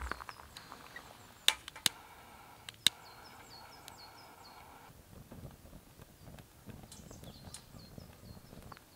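A gas lighter clicks sharply three times and then hisses steadily as it lights a can of dry pine needles. The hiss cuts off about five seconds in, and the needles, now alight, burn with a soft, low crackle. Small birds chirp repeatedly in the background.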